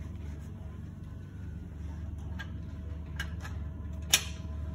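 Light metal tool clicks as a wrench and socket are fitted to the propeller hub nut on a saildrive shaft, ending in one sharp metallic clink about four seconds in, over a steady low room hum.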